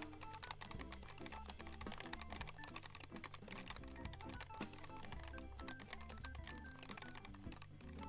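Fast, continuous typing on a Keychron K1 V4 low-profile mechanical keyboard, a dense run of key clicks. Background music with a steady bass line plays under it.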